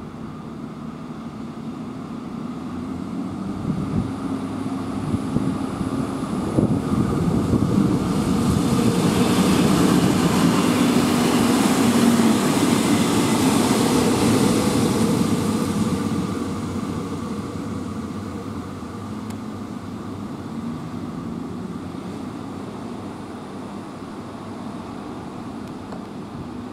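Two-car InterPici diesel railcar departing and passing by. The engine hum and running noise build to a peak around the middle, then fade away.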